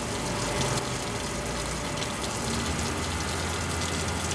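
Pressurised water spraying steadily from a leak at a weld in a 12-inch pipe, a continuous gushing hiss with a low steady hum underneath.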